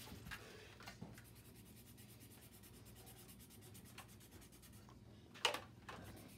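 Faint handling of a plastic Nerf blaster: light rubbing and a few small clicks, then a sharper, louder clack about five and a half seconds in, followed by a smaller one.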